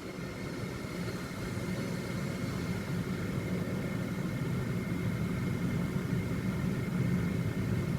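BMW N52 straight-six engine running steadily, slowly getting a little louder, with a thin steady whine above it.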